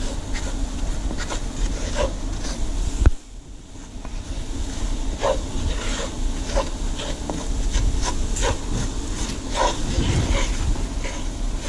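A roux being stirred in a pot, a spoon scraping across the bottom again and again in uneven strokes. About three seconds in comes a sharp knock, after which it is briefly quieter before the scraping picks up again.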